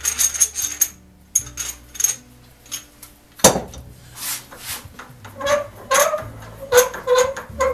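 Columbian No. 63 bench vise being worked by hand: a run of metal clicks and clinks as the steel handle slides and knocks in the screw head while the jaw is run in and out. In the second half come short ringing clinks.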